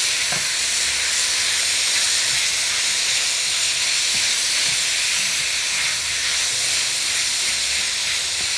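Chicken strips sizzling steadily in oil in a very hot wok as they are stirred with a silicone spatula.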